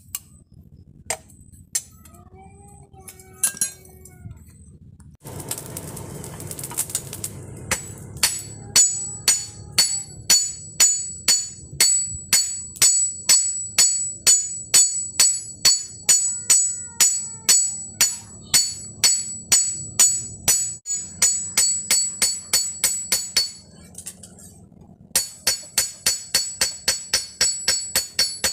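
Hand hammer striking a machete blade on a small steel anvil, about two blows a second, each with a high ringing of steel. Near the end a quicker run of lighter blows follows. Before the hammering, a few scattered clinks and a brief rushing hiss.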